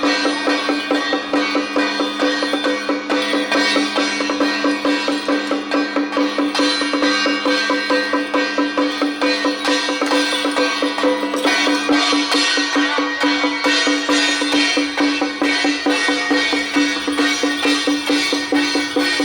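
Traditional temple-procession music: a fast, even beat on drums and wood block under a steady held tone.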